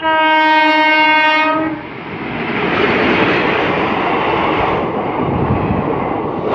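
An Indian Railways WAG-7 electric locomotive sounds its horn in one blast of about a second and a half that cuts off sharply. The train then runs past at speed with a loud, steady rush of wheel and coach noise.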